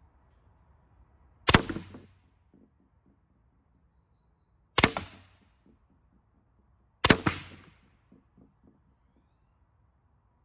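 Three shots from a Valken M17a2 compressed-air magfed paintball marker firing 9.9 g rubber riot balls at about 305 fps. Each sharp pop has a short tail and is followed by a few faint knocks. The second shot comes about three seconds after the first, and the third about two seconds after that.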